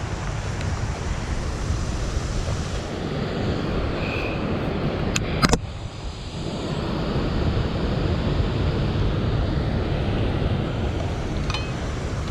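Steady rush of water below a dam with wind buffeting the microphone, and a couple of sharp clicks about five and a half seconds in.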